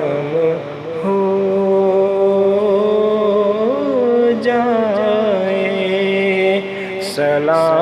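Wordless sung vocal notes of an Urdu naat, long and held, gliding slowly from one pitch to the next in a chant-like line.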